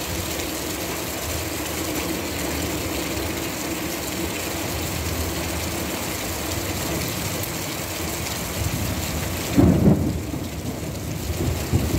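Heavy rain falling steadily, with a hiss of drops. Near the end, a sudden loud low rumble breaks through.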